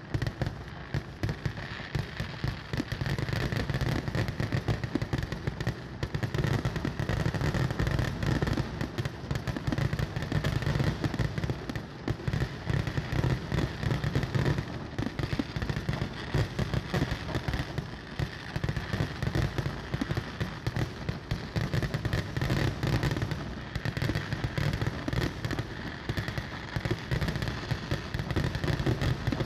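Kerala temple-festival fireworks (vedikkettu) going off in a dense, unbroken barrage of rapid bangs and crackles.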